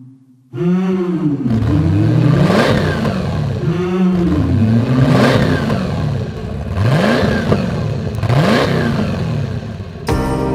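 V8 petrol inboard engine revved again and again, its pitch rising and falling with each blip of the throttle. It cuts in suddenly about half a second in, and music starts just before the end.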